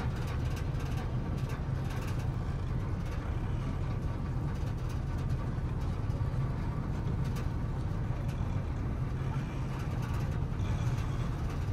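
Tourist river boat's engine running with a steady low drone.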